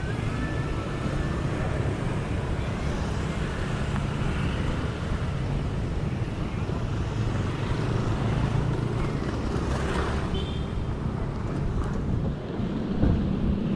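Street ambience dominated by a steady low rumble of vehicle engines passing, with a few brief higher sounds toward the end.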